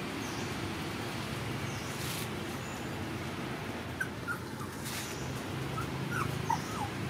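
Young puppy whimpering: a few short, high squeaky whines about four seconds in and a few more about two seconds later, over a steady low hum.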